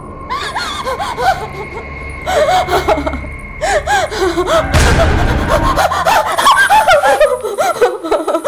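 A woman sobbing and wailing in distress, in many short rising-and-falling cries. A loud low rumbling hit comes about five seconds in, and a thin steady high tone sounds under the first few seconds.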